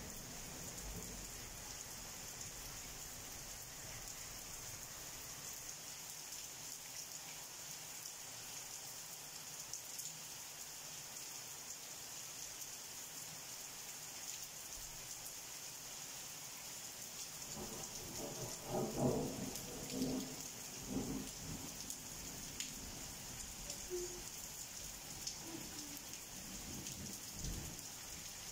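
Steady heavy rain falling, with the last of a thunder rumble dying away at the start and a short, louder roll of thunder about two-thirds of the way through.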